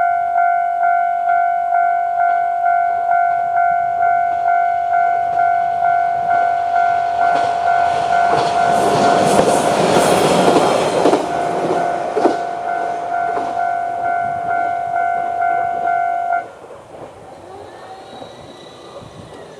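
Japanese level-crossing alarm ringing its usual repeating electronic 'kan-kan' bell tone, about one and a half strikes a second, while an AN-8800 series diesel railcar runs over the crossing about eight seconds in, its passage rising and fading with wheels clicking over the rail joints. The alarm cuts off suddenly about sixteen seconds in.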